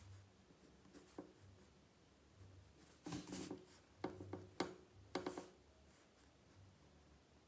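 Ballpoint pen writing on lined paper: a few short scratching strokes about halfway through, quiet otherwise.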